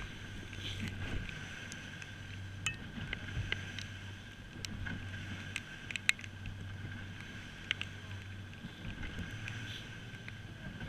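A rigid inflatable boat's engine running steadily with a low hum, with scattered light clicks and knocks on top.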